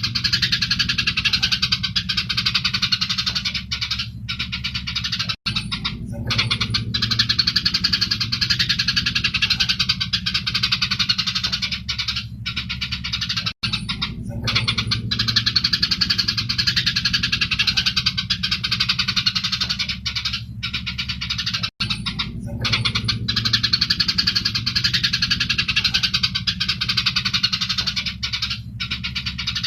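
Eurasian tree sparrows giving dense, continuous fighting chatter over a low hum. The recording is looped, with a short drop-out about every eight seconds as it restarts.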